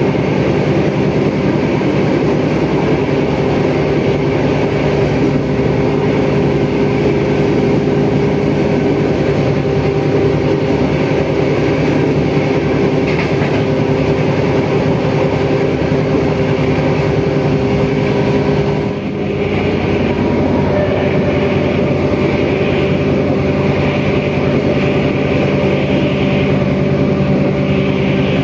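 Inside a moving KRD diesel railcar commuter train: the diesel engine drones steadily over the rumble of the wheels on the rails. Near two-thirds of the way through, the sound dips briefly and the engine note shifts slightly.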